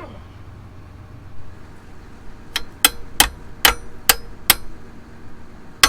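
Sharp, ringing metal-on-metal clangs: six strikes in quick succession starting about halfway in, then one more near the end.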